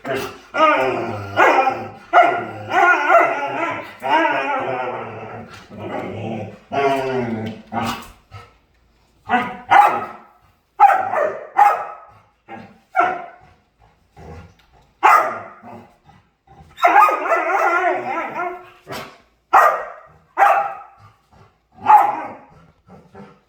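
A dog vocalizing in play: for the first several seconds a run of long, wavering calls that slide up and down in pitch, then a string of short, separate barks about one a second.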